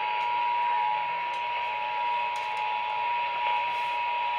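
Emergency Alert System attention signal: a steady two-tone alarm held unbroken, with radio hiss beneath it.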